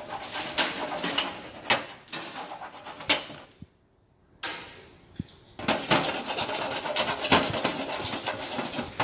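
A hard object scraped across the powder-coated steel panel of a shop shelf, making rasping strokes. It breaks off for under a second about four seconds in, then scrapes faster and more steadily.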